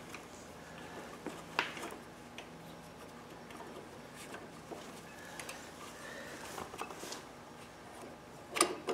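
Faint clicks and light taps of metal parts as a small-engine carburetor is handled and worked onto two M6 threaded rods, with a sharper click near the end.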